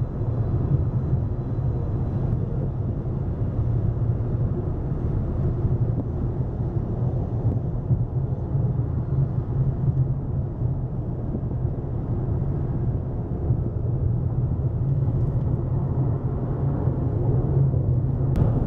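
Road and engine noise inside a car moving at freeway speed: a steady low rumble.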